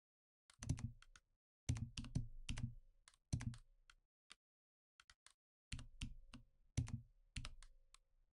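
Computer keyboard keystrokes in short irregular clusters of a few presses, with pauses between, typical of keyboard shortcuts being pressed.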